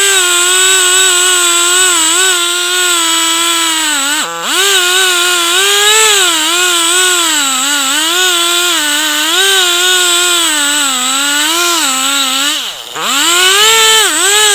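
Chainsaw running at full throttle, ripping a log lengthwise in a chainsaw mill, its pitch wavering under load. The throttle drops briefly and comes back up about four seconds in and again near the end. The cut is going slowly, which the operator puts down to a chain that needs sharpening.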